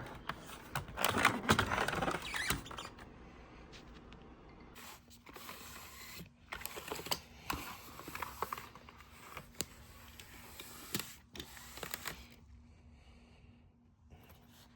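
Handling noise of a plastic computer keyboard being turned over and moved about: scratchy rustling and scattered light clicks, busiest in the first couple of seconds and then sparser.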